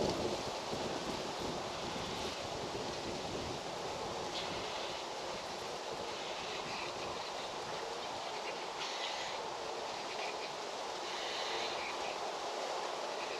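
Steady outdoor rushing ambience, with short high chirping calls that come and go every couple of seconds.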